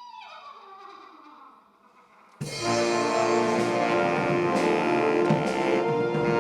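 Band music. The last notes of the song die away with a falling glide, then about two and a half seconds in a loud full-band passage with drums starts suddenly and holds steady.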